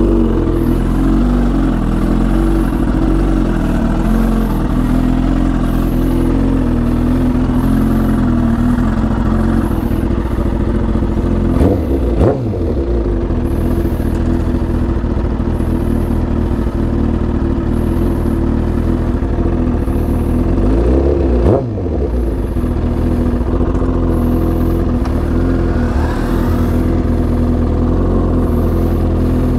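Suzuki GSX-R1000 K8's inline-four engine running steadily while the motorcycle is ridden. The engine note dips and climbs again twice, about twelve seconds in and again about nine seconds later.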